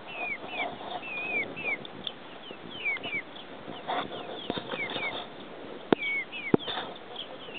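Six-week-old Marans chicks peeping: a steady string of short, high chirps, each dropping in pitch, two or three a second. Two sharp clicks stand out about six seconds in.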